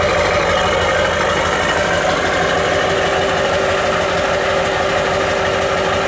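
2001 Duramax 6.6-litre V8 turbodiesel idling steadily, heard at its tailpipe, less than a minute after a cold start from sitting all night. A steady tone joins the engine note a little over two seconds in.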